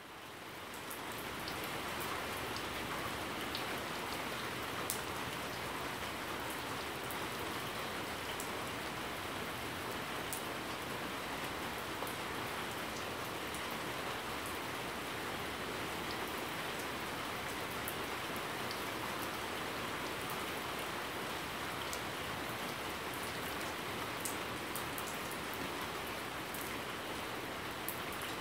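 Steady rain falling and landing on surfaces, with now and then a single sharper drop tick standing out. It fades in over the first second or so, then holds even.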